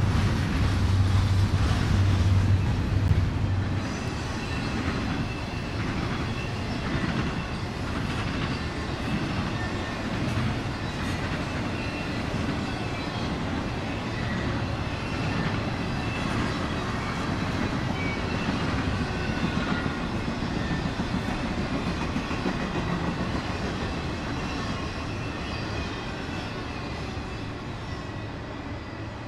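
Freight train passing. For the first few seconds the diesel locomotives' engines give a low drone, then the cars roll by with wheel clatter and some faint wheel squeal, slowly fading.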